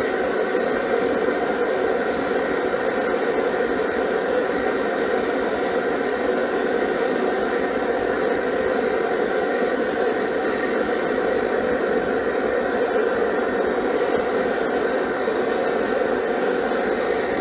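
A steady mechanical drone with a few faint hum tones, unchanging throughout, like a machine running close by.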